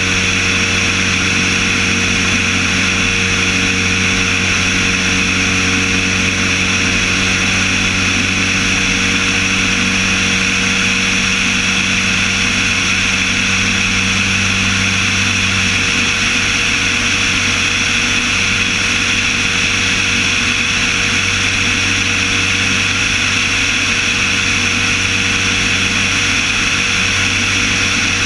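Propeller aircraft's engine running steadily in flight, a constant drone under loud rushing air noise on the wing-mounted camera. The low hum shifts slightly just past halfway.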